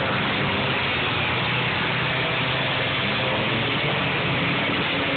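Engines of several demolition-derby compact cars and small pickups running around a dirt track together, a steady, dense blend of engine noise.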